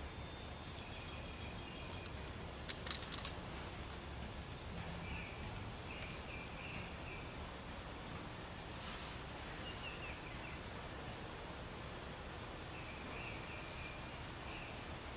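Quiet outdoor garden ambience with a steady hiss and faint, short high chirps now and then. A brief cluster of sharp clicks comes about three seconds in.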